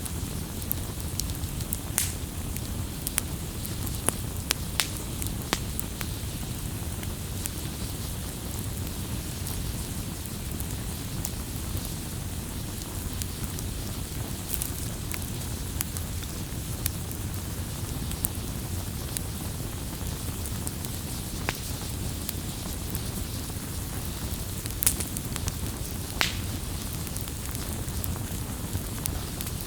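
Wood fire burning with a steady low rumble and scattered sharp crackles and pops. Two louder pops come near the end.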